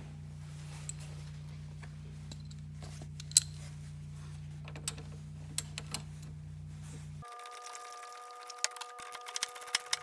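Scattered metallic clicks and knocks of a ratchet and 10 mm socket loosening car battery terminal clamps, over a steady low hum, with one sharp knock about a third of the way in. About seven seconds in, the hum cuts off and a steady high tone takes over, with a run of quick clicks.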